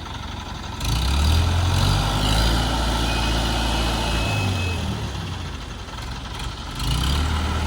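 Heavy diesel vehicle engine running close by: a loud low drone that comes in suddenly about a second in, eases off a little past the middle and picks up again near the end.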